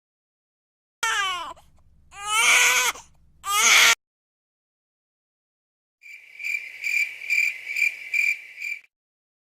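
Three short wailing cries of a baby with sliding pitch, then after a pause a cricket chirping in a steady high pulse, about two to three chirps a second: the stock 'crickets' sound effect.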